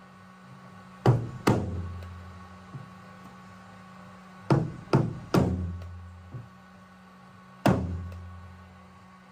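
A sparse drum-machine beat: pairs of sharp low thuds, each trailing a low booming decay, about every three seconds over a faint steady hum.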